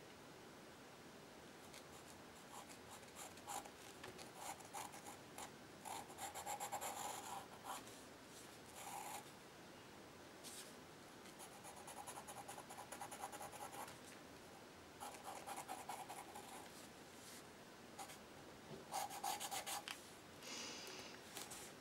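Soft black charcoal pencil scratching across gesso-coated paper, coming in short runs of quick strokes separated by pauses.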